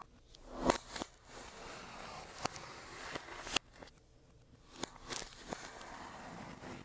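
Hands handling a laptop and its packaging: a few sharp clicks and taps at irregular intervals, with rustling and scraping between them.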